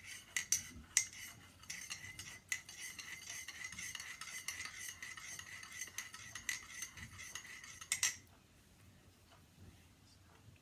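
Metal teaspoon stirring tea in a ceramic mug: a few separate clinks against the side at first, then fast, continuous clinking that stops suddenly about eight seconds in.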